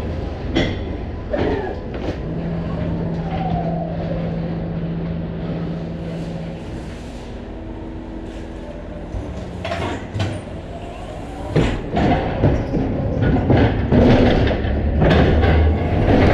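A DAF XF lorry on the move: a continuous low rumble with a steady hum, broken by clattering knocks and rattles that grow denser and louder over the last few seconds.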